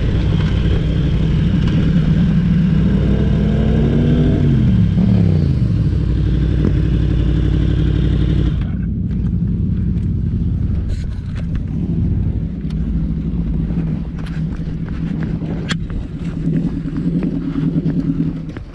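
Yamaha R1M sportbike's inline-four engine under heavy wind noise at speed, its revs falling away about four seconds in as the bike slows to a stop. About nine seconds in the wind noise cuts off and the engine idles steadily, with a few sharp clicks, until the idle falls away near the end.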